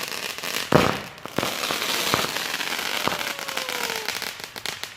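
Consumer fireworks going off: dense crackling with several sharp bangs, the loudest about three-quarters of a second in, and a falling whistle a little after three seconds in.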